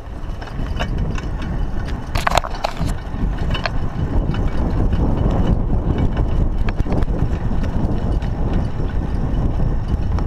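Raleigh Ascent mountain bike ridden over a rough dirt track. A steady low rumble of wind and tyres on the chest-mounted camera's microphone, with frequent clicks and rattles from the bike and a brief, louder rasping clatter about two seconds in.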